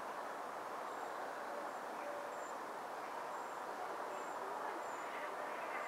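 Steady outdoor background noise, with a faint high chirp repeating about every three-quarters of a second.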